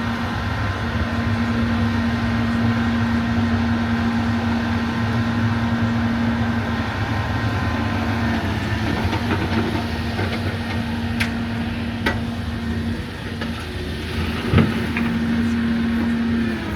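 Crawler excavator's diesel engine running steadily with a constant humming note, with a few sharp clicks or knocks in the second half, the loudest one near the end.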